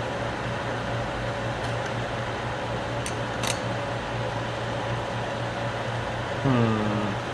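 Slide projector's cooling fan motor running with a steady hum, with a few light clicks around the middle. Near the end comes a short, louder low hum that slides down in pitch.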